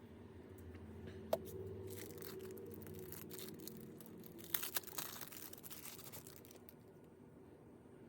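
Glass chips and old adhesive being scraped off a phone's frame: faint scratching and crunching, with a sharp click a little over a second in and the loudest scraping about four and a half to five seconds in.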